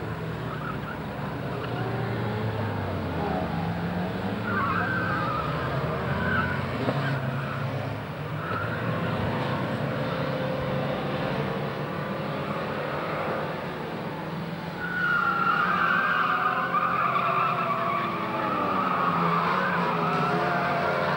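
Engines of a pack of small saloon race cars revving as they race through a bend, with tyres squealing. It gets louder about fifteen seconds in as the cars come nearer.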